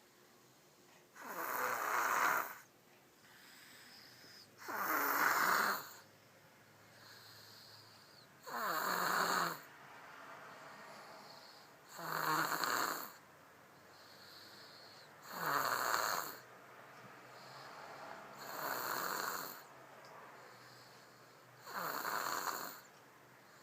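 A baby snoring in sleep: seven loud snores at an even pace, about one every three and a half seconds, each about a second long, with quieter breathing between.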